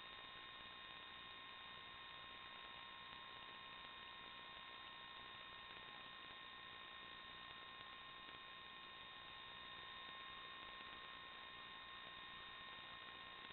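Near silence: a faint, steady electronic hiss with a few steady high-pitched tones, unchanged throughout.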